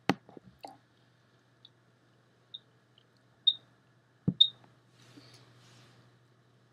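A sharp thump, a few small knocks and clicks, and several very short high blips, with a second thump about four seconds in; a steady low hum runs underneath. The sounds fit someone at a desk using a computer, clicking and bumping near the microphone.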